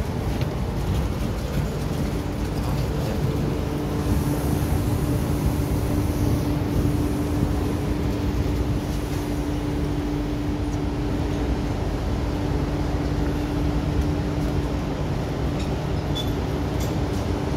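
MTR Island Line Q-Train electric metro train running through a tunnel and pulling into a station, with a steady rumble of wheels on rail. A steady electric hum sounds through most of the ride and fades near the end as the train reaches the platform.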